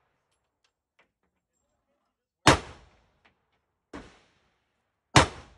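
Two loud gunshots about two and a half seconds apart, each with a short echoing tail. A fainter shot falls between them, about a second and a half after the first.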